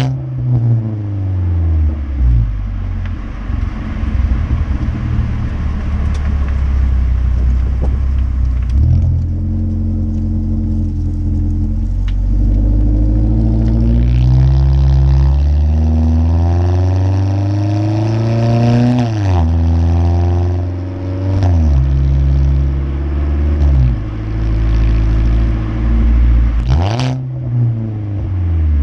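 2015 Ford Focus SE's 2.0-litre four-cylinder engine, run with a muffler-deleted exhaust and an open K&N intake, while driving. The engine pitch climbs and drops again and again, with a quick rev sweep near the start and another near the end, and occasional pops from the open exhaust.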